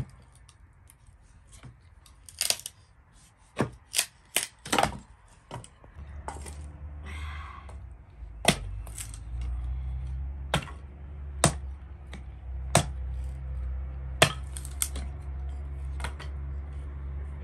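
A series of irregular sharp clicks and knocks, several in quick succession early on and then one every second or two, with a steady low rumble starting about six seconds in.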